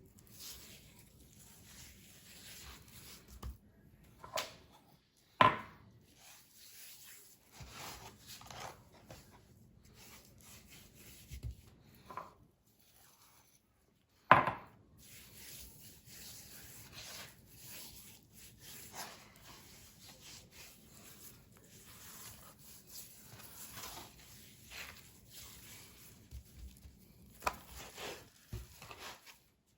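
Hands rubbing seasoning into a raw beef brisket and handling the meat: soft rubbing and patting with scattered light clicks, and two loud knocks, about five seconds in and again about fourteen seconds in.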